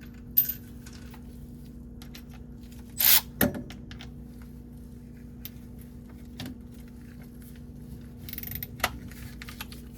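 Metal hand tools clinking and clattering while a socket wrench is worked on the starter bolts: scattered light clicks, a loud clatter about three seconds in followed by another, and a sharp clink near the end, over a steady low hum.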